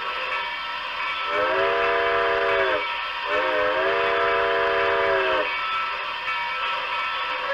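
Steam locomotive whistle sounding two long blasts, the second a little longer, each a chord of several notes that sags in pitch as it cuts off. A steady hiss runs underneath.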